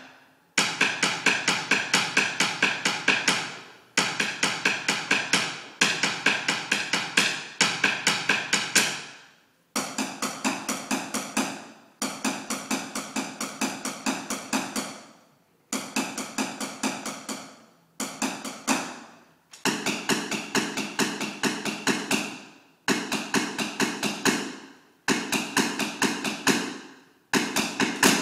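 Wooden drumsticks clacking in bursts of quick strikes, about four a second, each burst lasting a few seconds with short pauses between, the strikes ringing on in a reverberant room.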